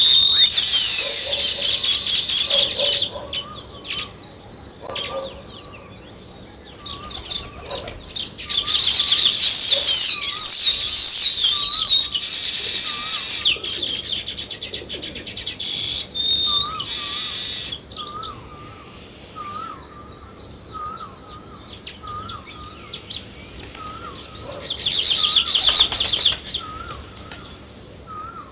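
Small birds, weaver birds and sparrows, chirping in loud bursts of rapid chattering that come and go, over a softer short call repeated about once a second.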